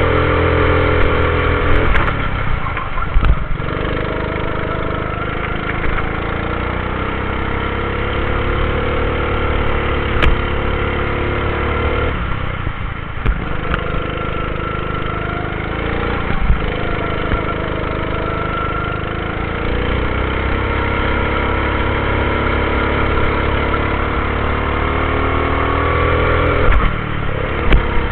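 Go-kart engine running flat out around a track, its pitch climbing steadily and then falling away briefly about four times as the throttle is lifted for corners, with a few knocks along the way.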